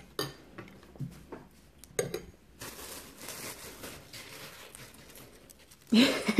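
A metal spoon clinking against a ceramic bowl a few times, then a thin plastic bag rustling and crinkling for about three seconds as a hand rummages in it. A voice starts near the end.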